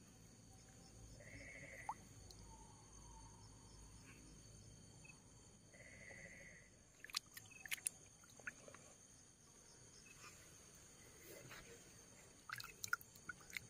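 Faint, steady chirring of night insects, with two short buzzy calls, one about a second in and one about six seconds in. A few faint sharp clicks come just after the middle and again near the end.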